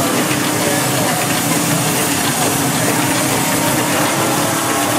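1924 Burrell 8 hp steam traction engine standing in steam, giving off a steady hiss with a low, even tone beneath it.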